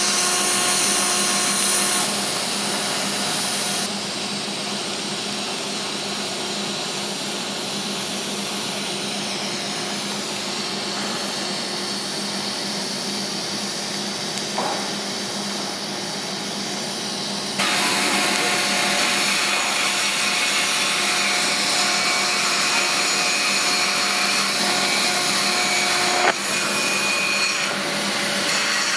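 TIG welding arc on a steel pipe running at about 160 amps during the root reinforcement pass: a steady hiss and buzz with a faint hum under it. Its level drops a few seconds in and jumps back up a little past the middle, with a sharp tick near the end.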